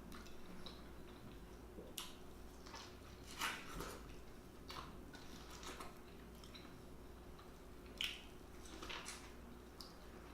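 Close-miked eating: chewing and wet mouth smacks from someone biting into sauce-covered corn on the cob, with a handful of separate sharp smacks, the loudest about three and a half seconds in and at eight seconds.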